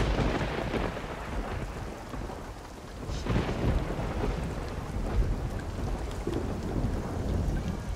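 Thunderstorm: thunder rumbling over steady rain, with a louder peal about three seconds in.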